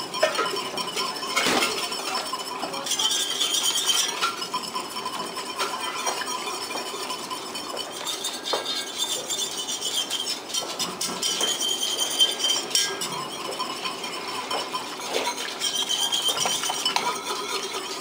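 Metal whisk stirring thickening gravy in an enamelled cast-iron pot, its wires clinking and scraping against the pot in repeated bouts over the bubbling gravy.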